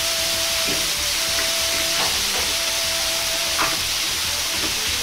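Water just poured into a very hot wok of stir-fried daikon, sizzling and hissing as it boils off in steam, with a few sharp clicks of the ladle against the wok.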